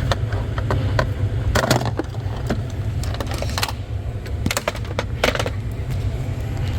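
A few sharp clicks and knocks, irregularly spaced, over a steady low rumble.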